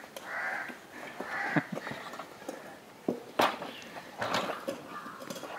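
Crows cawing repeatedly, each call about half a second long. Two sharp knocks about midway and again a second later, the first the loudest sound.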